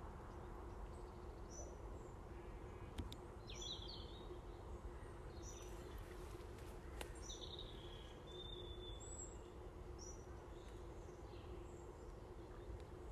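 Faint outdoor ambience: a few short, high bird chirps and calls come and go over a steady low hum, with a couple of soft clicks.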